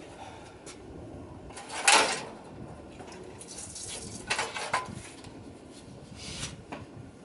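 Short handling sounds as priming fuel is poured from a bottle into the supercharger's injector hat of a dragster engine that is not running: three brief sharp bursts, the loudest about two seconds in.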